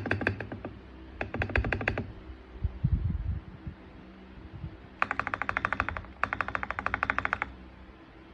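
Mechanical keyboard keys with MMD Princess Holy Panda v2 tactile switches pressed in fast runs, about a dozen sharp clacks a second, in several bursts with a few low thuds in between.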